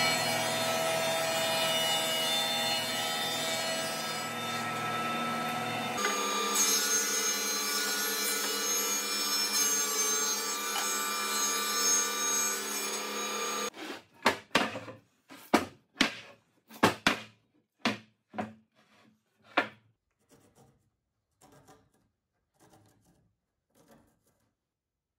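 Grizzly thickness planer running and planing rough boards as they are fed through, a loud steady machine noise. About fourteen seconds in it stops, and a run of sharp knocks follows for several seconds, then only faint taps.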